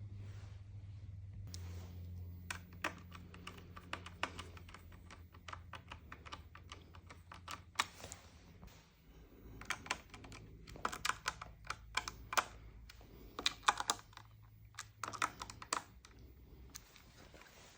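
Bursts of small, quick clicks and taps, like small plastic parts being handled and snapped, over a low steady hum that fades near the end.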